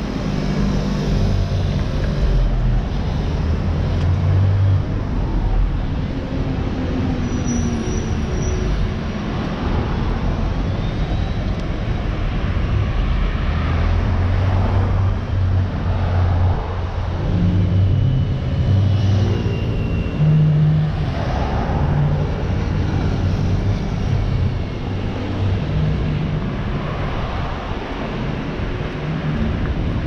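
Road traffic on a busy city street: cars and a bus driving past, a steady mix of engine hum and tyre noise that swells louder several times as vehicles pass close.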